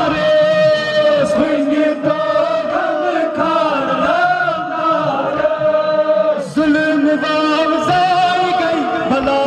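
A man's voice chanting a Kashmiri noha, a Muharram lament, into a handheld microphone and amplified through PA loudspeakers. It is sung in long held, wavering notes, with a short break about two thirds of the way through.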